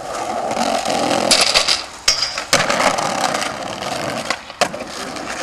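Skateboard wheels rolling over asphalt and brick paving, with a few sharp clacks of the board hitting the ground.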